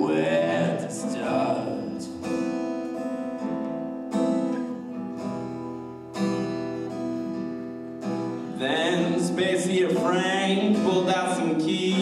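Acoustic guitar accompanying male singing. The singing stops after the first second or so, the guitar carries on alone with ringing chords struck about every two seconds, and the singing comes back in about nine seconds in.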